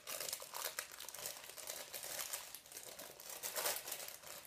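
Packaging of a squishy toy crinkling and rustling in irregular crackles as it is handled and opened.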